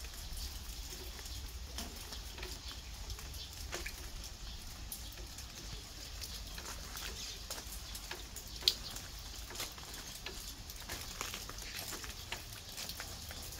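Scattered, irregular light ticks and taps over a faint steady low rumble, with one sharper tick a little past the middle.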